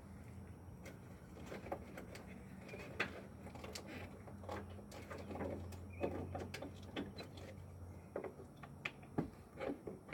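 Irregular small clicks, taps and plastic rattles of hands working at a headlight bulb and its connector, over a low steady hum.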